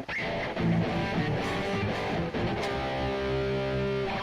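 Electric guitar played through a Mooer GE200 multi-effects unit running an imported Mesa amp preset: a chord strummed right at the start, a quick run of chords, then a chord left ringing from near the three-second mark.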